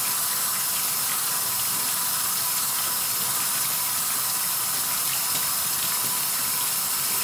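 Cold tap water running steadily onto the stainless lid of a Presto stovetop pressure cooker in a stainless-steel sink, splashed over the lid by hand. The cold water cools the cooker to bring its pressure down before the lid is opened.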